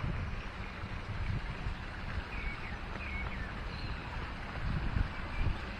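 Wind buffeting the microphone, an uneven low rumble over a steady outdoor hiss, with a few faint high chirps in the middle.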